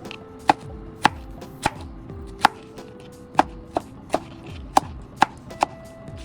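Knife dicing strawberries on a cutting board: about ten sharp chops at an uneven pace, roughly two a second.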